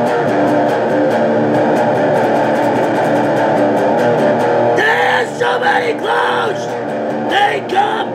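Heavy metal song: distorted electric guitar played over a steady beat. About five seconds in, a line of notes bending up and down comes in over it.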